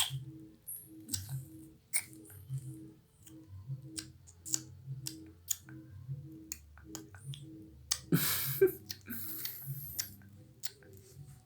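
Scattered sharp clicks and crackles of a toothless baby gumming and handling a kerupuk cracker, with a louder crackling rustle about eight seconds in. Faint background music with a steady beat runs underneath.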